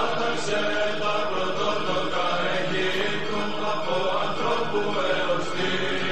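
Background music: Greek Orthodox chant, voices singing a slow melody over a held low note.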